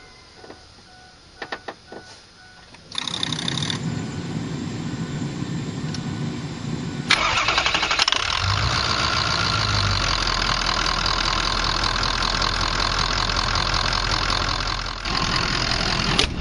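A few light clicks, then a 6.0L Ford Powerstroke turbo-diesel V8 cranking on its starter for about four seconds before it fires about seven seconds in and settles into a steady, loud idle: a successful start on freshly installed batteries.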